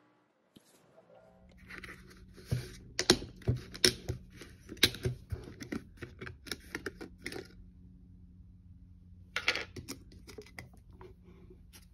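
Plastic yogurt tub handled on a table: a run of sharp knocks and clicks as the tub is set down and its snap-on plastic lid is worked off, then a short crinkly rustle about two seconds later. A low steady hum runs underneath.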